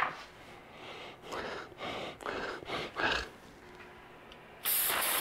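A small metal tin set down on a wooden workbench with a click, a few soft rustling sounds, then an aerosol can with a straw nozzle spraying in one steady hiss for about half a second near the end.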